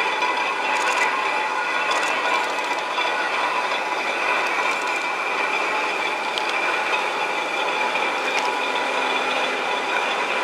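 Railway turntable turning with an EF81 electric locomotive on its bridge: the drive machinery runs steadily, giving a mechanical hum made of several held tones over a grinding rumble, with a few faint clicks.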